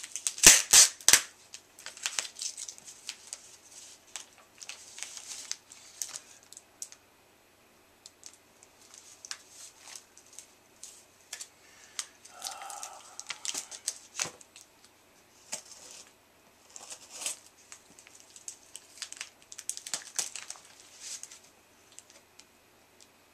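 Packing materials being handled: plastic comic bags crinkling and cardboard backing boards and box pieces rustling and tapping, in short irregular bursts with a sharper cluster of clicks about half a second in.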